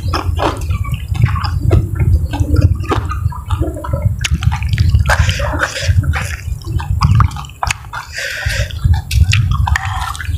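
Close-miked eating sounds: a person chewing food with many short, wet clicks and smacks of the mouth, over a steady low rumble.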